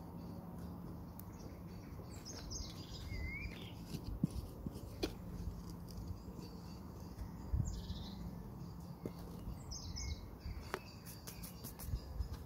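Small birds chirping in short calls every few seconds, over a faint steady low hum, with a few light knocks and taps.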